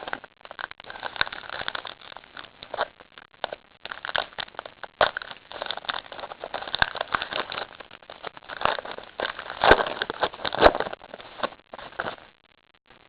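Foil wrapper of a baseball card pack crinkling and rustling as it is torn open and handled: a dense run of irregular crackles, loudest near the end.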